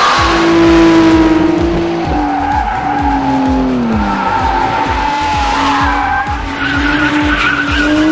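Drift car's engine held high while sliding, with its tyres screeching. The engine note drops about halfway and climbs again near the end. Music with a steady beat plays underneath.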